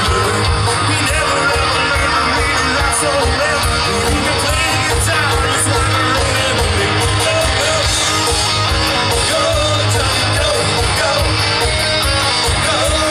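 Live rock and roll band playing loud 1950s-style rockabilly: electric guitar and bass over a fast, steady drum beat, with singing at times.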